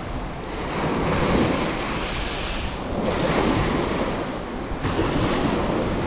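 Small sea waves breaking and washing up a fine pebble beach. The surf swells twice, about a second in and again about three seconds in.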